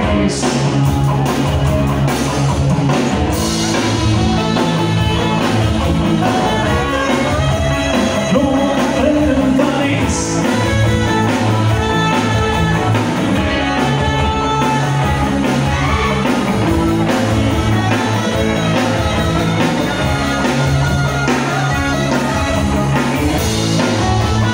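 A live band playing amplified music with a singer, over a steady bass beat.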